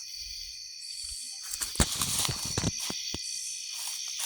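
Footsteps crunching on the ground, a handful of steps bunched about two seconds in, over a steady high chirring of insects.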